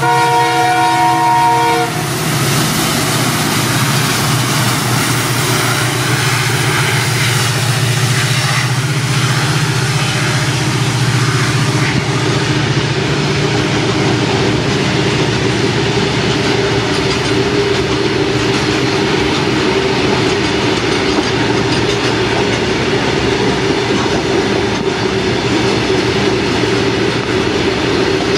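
Horn of WDG-4 diesel locomotives sounding several tones at once, cutting off about two seconds in, then a long rake of loaded BOXN open freight wagons rolling past with a steady rumble and clatter of wheels.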